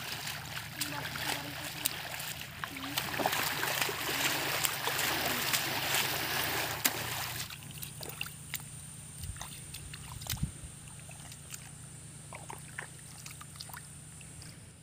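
Shallow muddy field water sloshing and splashing, with many small clicks and knocks. The water noise stops suddenly about seven and a half seconds in, leaving scattered clicks and a faint steady high tone.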